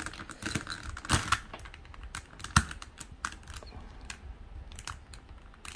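Plastic pieces of a Rua cube puzzle clicking and snapping as they are pressed and worked into place by hand: scattered sharp clicks, the loudest a little after one second and at about two and a half seconds.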